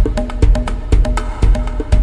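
Tribal drums playing a steady, repeating rhythm: heavy low beats about twice a second, with lighter pitched drum strokes between them.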